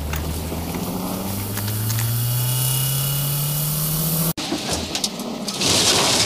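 Car engine running, its revs climbing smoothly and steadily for about four seconds, then cut off abruptly. A loud hissing whoosh swells up near the end.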